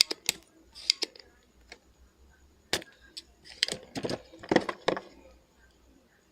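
Sharp clicks and light metallic clinks of small soldering tools being handled, with a spring-loaded desoldering pump in use to clear leftover solder. A few separate clicks come first, then a quick cluster of clatter about halfway through.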